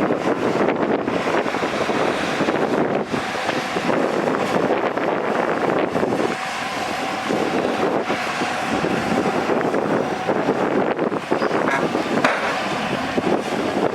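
Heavy diesel earthmoving machinery working with its engine running steadily, mixed with wind on the microphone.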